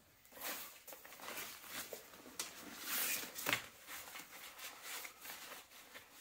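Fabric of an ultralight backpack rustling and crinkling in irregular bursts as hands rummage inside it, loudest about three seconds in.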